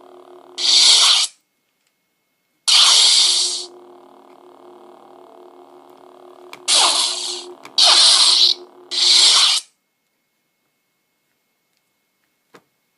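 Lightsaber sound effects from a homemade sound board: a low electric hum broken by loud, hissing crash bursts of under a second each, one about half a second in, one near three seconds in after a short silence, and three close together between about seven and ten seconds. The hum cuts off after the last burst, leaving silence and a couple of faint clicks.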